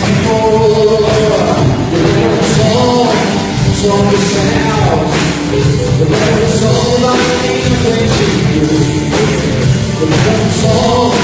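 Loud rock-style band music with drums and a sung melody.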